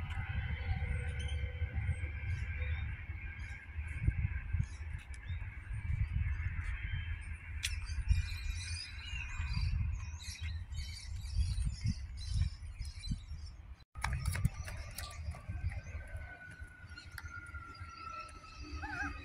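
Birds chirping over a gusty low rumble as a 4000 Class electric train approaches. After a short dropout about fourteen seconds in, a steady whine falls slowly in pitch as the train slows into the platform.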